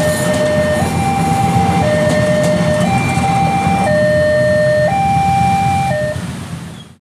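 Level-crossing warning alarm sounding a two-tone signal, switching between a lower and a higher tone about once a second, over the low rumble of a passing electric commuter train. It all fades out near the end.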